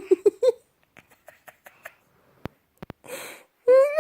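A voice chanting in quick rhythmic pulses stops about half a second in. Small clicks and a breath follow in near quiet, then a baby's voice rises into a whimper near the end.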